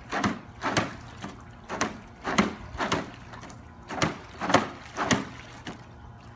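A series of irregular sharp knocks, about two a second, over a low steady hum.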